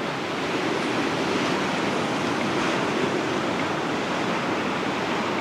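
Atlantic Ocean surf washing onto the beach as a steady rushing noise.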